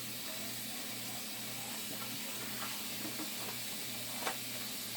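Steady sizzling hiss from cooking on the stove, over a low steady hum, with one sharp click about four seconds in.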